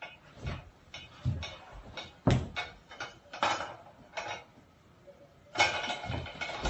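Irregular knocks and rattling clatter as a pedestal fan is grabbed and handled, with a sharp knock about two seconds in and a louder burst of clatter near the end.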